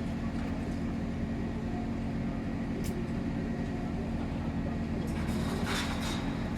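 A large engine running steadily with a low, even hum, with a short hiss about five and a half seconds in and a couple of sharp clicks.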